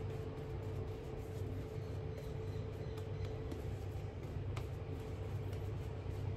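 Faint swishing of a silvertip badger shaving brush painting soap lather onto the face, over a steady low hum in the room.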